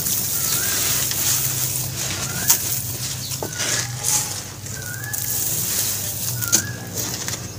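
Dry charcoal ash poured and crumbled by hand into a bowl of water: a steady gritty hiss with a few sharp crunches. A bird chirps repeatedly in the background, short calls every second or two.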